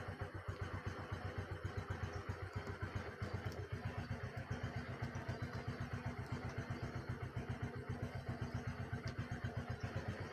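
A small engine running steadily, a regular rapid low thudding that keeps up without change.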